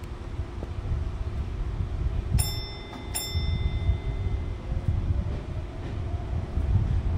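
Sotetsu electric train running into a tunnel, heard from inside the cab: a steady low rumble of the running train. About two and a half seconds in, two short bell-like dings sound less than a second apart, each ringing briefly.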